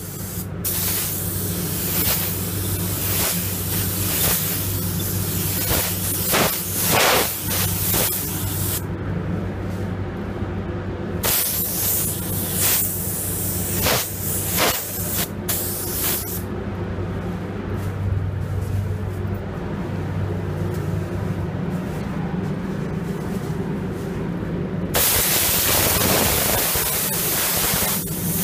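Paint spray gun hissing in long passes with short breaks between them, over a steady low hum, as base coat is sprayed and blended out into existing paint.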